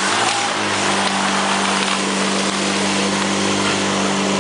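Portable fire pump engine at full throttle, rising in pitch in the first half second and then running steadily at high speed.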